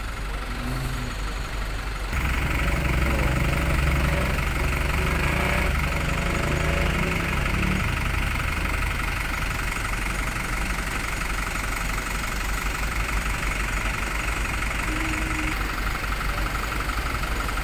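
Diesel truck engine idling steadily, getting louder about two seconds in.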